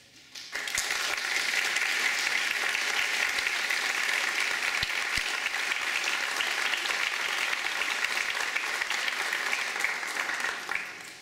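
Audience applauding, starting about half a second in, holding steady, and dying away near the end.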